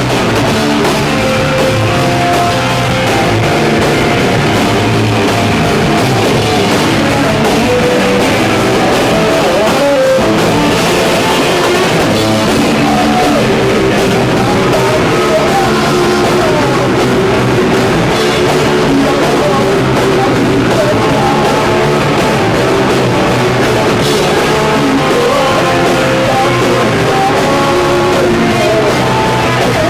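Hardcore band playing a song live at full volume: distorted electric guitar, bass and drum kit, with vocals.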